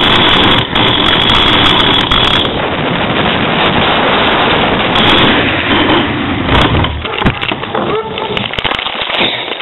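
Hard wheels of a trash-can racer rolling fast down asphalt: a loud, rough rumble and rattle. About two-thirds of the way in it eases into scattered knocks and clatter as the racer slows.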